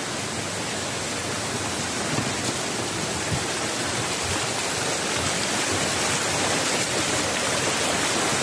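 Shallow mountain stream rushing and splashing over boulders, a steady rush of water that grows a little louder in the second half.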